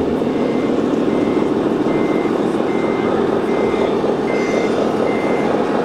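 Reversing beeper of a radio-controlled model truck's sound module, one short high beep about every 0.8 seconds over a steady low rumble. It signals that the truck is backing up.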